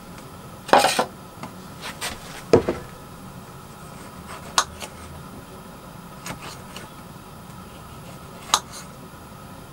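Knife cutting tomatoes on a chopping board: several sharp taps of the blade against the board, spaced unevenly, over a faint steady background.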